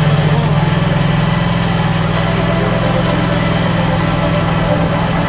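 Engine of a Wright Stander ZK stand-on zero-turn mower running steadily at a constant speed while the machine drives across the lawn.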